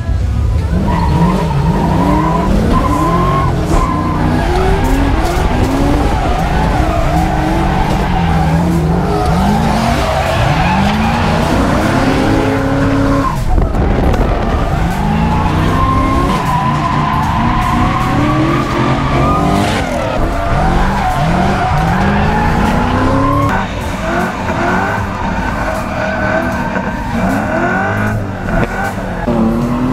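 Drift car engine revving hard in repeated rising sweeps as the car slides through a run, with tyres squealing and skidding.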